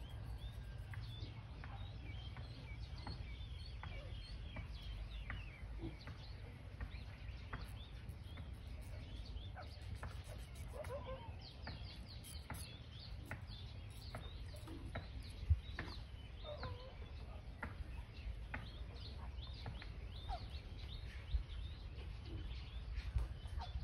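Birds chirping over a steady low wind rumble on the microphone, with one sharp click about two-thirds of the way through.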